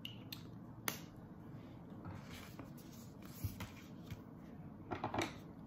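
Glue stick rubbing across a paper envelope to seal it, with light handling clicks: one sharp click about a second in and a short cluster of clicks near the end.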